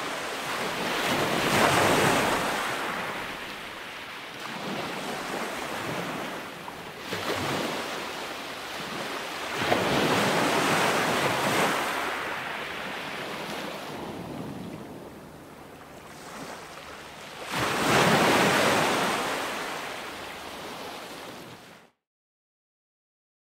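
Sea surf breaking and washing up a sandy beach, the noise swelling and falling away in several surges, with wind buffeting the microphone. It cuts off abruptly shortly before the end.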